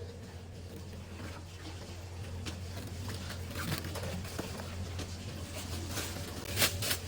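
Light clicks and knocks of takeaway food containers being handled and packed over a steady low hum, with a sharper click near the end.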